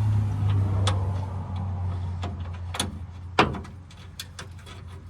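Scattered metallic clicks and clinks of hand tools being handled during bolt work under a pickup, over a steady low hum that weakens after about three seconds. A single sharp clack stands out a little past the midpoint, followed by a run of small light ticks.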